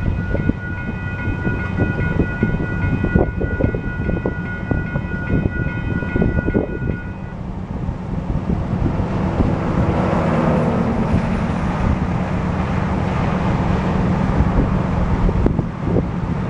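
Distant diesel locomotive horn sounding a held chord that stops about seven seconds in, over a steady low rumble of the train and wind buffeting the microphone.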